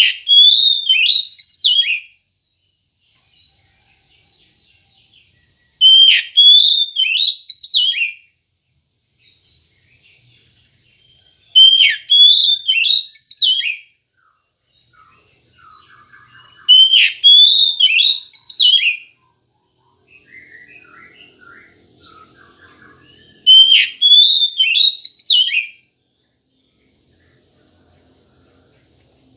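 Oriental magpie-robin (kacer) singing: five loud, clear whistled song phrases of about two seconds each, repeated about every six seconds, with soft twittering in between.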